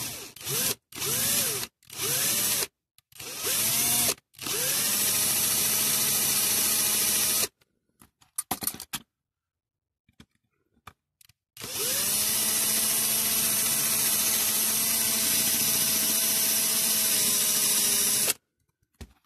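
Electric drill drilling out the rivets of a diecast toy's base: four or five short trigger pulls that spin up and wind down, then a steady run of a few seconds, a pause, and a longer steady run of about six seconds.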